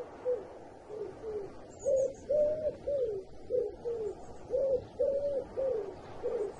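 An owl hooting: a steady run of low hoots, about two a second, some held flat and some dropping in pitch at the end.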